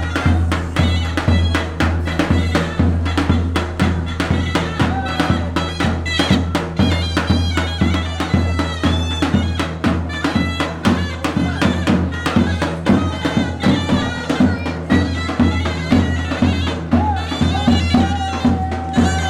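Davul bass drum beaten in a steady dance rhythm under a shrill, wavering reed-pipe melody: the zurna of a davul-zurna pair playing folk dance music.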